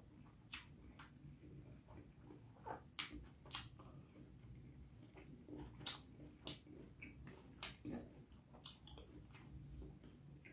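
Close-miked eating of beef curry and rice: wet chewing and mouth smacks, with irregular sharp clicks, the loudest about six seconds in.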